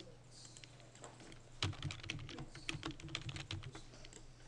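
Computer keyboard typing: a few scattered keystrokes, then a quick, dense run of them from about a second and a half in, easing off near the end.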